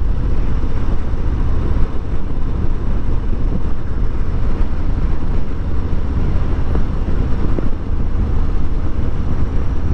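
Harley-Davidson Street Bob 114's Milwaukee-Eight V-twin running steadily while the bike is ridden, mixed with wind rushing over the microphone on the windshield-less bike.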